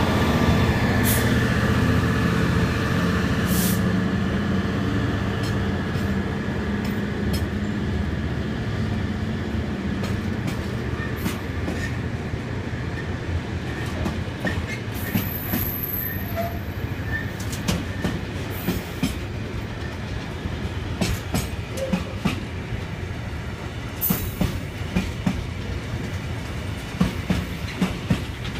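Freightliner freight train passing: the diesel locomotive's engine hum fades away over the first few seconds, then a long line of hopper wagons rolls by with a steady rumble and rhythmic wheel clicks over the rail joints that grow sharper in the second half.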